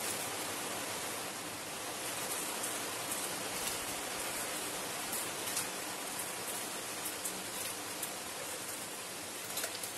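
Large metal pot of moong dal at a boil, bubbling and hissing steadily, while washed rice is poured in from a metal bowl, with scattered light ticks over the steady noise.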